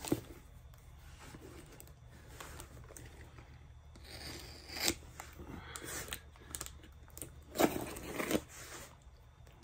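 Packing tape on a small cardboard box being picked at, slit and peeled: scattered scratches and scrapes of tape on cardboard, with louder rips about five seconds in and again near eight seconds.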